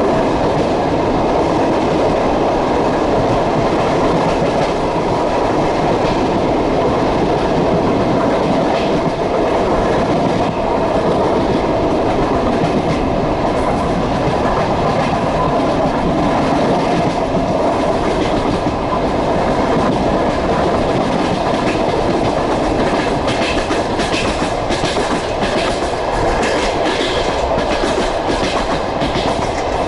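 Passenger train running at speed, heard from aboard: a steady rumble of the cars with the clickety-clack of wheels over rail joints, the clicks coming thicker near the end.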